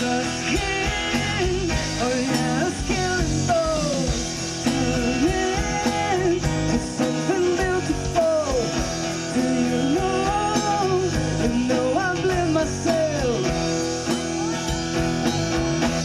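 Live pop-rock band playing: a singer with acoustic guitar, backed by electric guitar, electric bass and drum kit.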